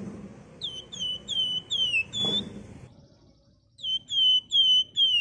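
Wergan Jawa (flamboyan) bird calling in two fast runs of short, high, down-slurred whistled notes, about five in the first run and four in the second. There is a muffled low thump at the start and another about two seconds in.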